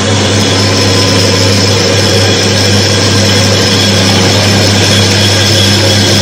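Timken-type oil friction tester running steadily: its electric motor turns a test bearing against a lever-loaded block, giving a loud, even hum with a faint high whine over it.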